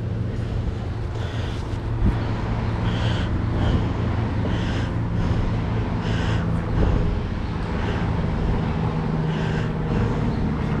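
A steady low motor hum, like an engine running, with short high-pitched chirps or beeps now and then.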